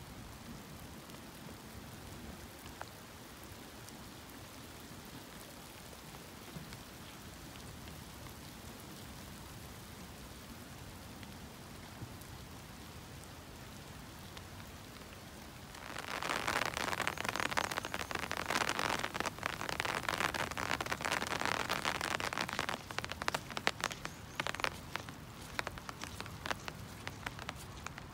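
Hail pelting down, starting suddenly about halfway in as a dense rattle of many sharp hits and thinning out toward the end. Before that there is only a faint steady hiss.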